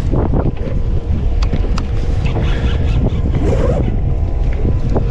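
Strong wind buffeting the microphone on an open boat at sea, with a faint steady hum underneath and a few sharp clicks.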